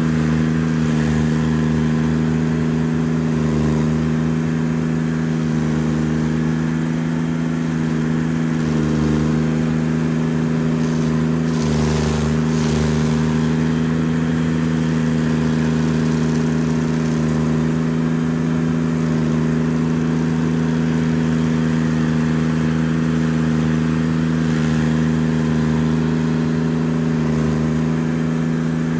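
Carlton SP7015 TRX tracked stump grinder running steadily while its cutter wheel grinds into a stump, with a brief scratchy burst about twelve seconds in.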